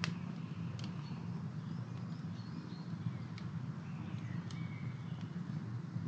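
Small stick campfire burning with a steady low rumble and a few sharp crackling pops, with birds chirping faintly in the background.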